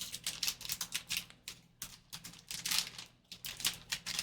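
Football trading-card pack being opened and its cards handled: quick, irregular crinkles and clicks of wrapper and cards, stopping just before the end.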